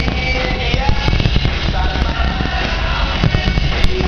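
Fireworks display: a dense run of firework bangs and crackles over loud music with singing, with one sharp crack near the end.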